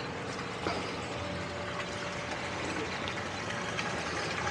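Portable salvage pump running steadily, pumping floodwater out of a swamped boat, with a faint trickle of water.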